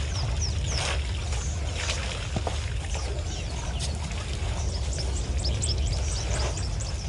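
African elephants drinking at a waterhole: water splashing and pouring as they draw it up in their trunks and squirt it into their mouths, over a steady low rumble, with small birds chirping repeatedly in the background.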